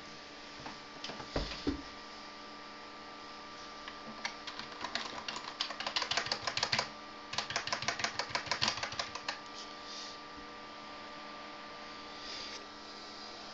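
Computer keyboard keys tapped rapidly: about four seconds in, a quick run of clicks lasting some five seconds with a short break in the middle, over a steady hum from the running computer.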